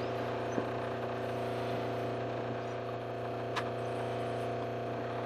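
Boat's fresh-water pressure pump running with a steady hum, building pressure in the water system with the taps shut, with a couple of faint clicks.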